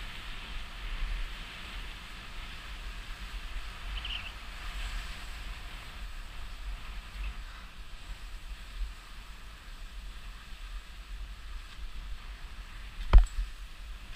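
Skis sliding and scraping steadily over thin spring snow, with wind buffeting the microphone. A single sharp knock about a second before the end.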